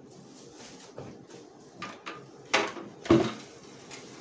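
A samurai armour cuirass being lifted out of a bubble-wrap-lined cardboard box: plastic wrap rustling, with several knocks and clatters as the armour bumps the box, the two loudest a little past the middle.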